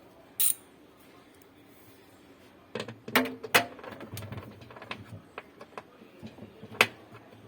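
A brief hiss, then a run of sharp clicks and knocks from about three seconds in: parts and tools being handled on a washing machine during maintenance.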